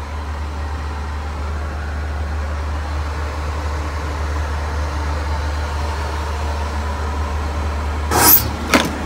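Steady cabin noise of a Boeing 737-800 in flight: a deep, even drone of engines and airflow. Two short sharp clicks come near the end.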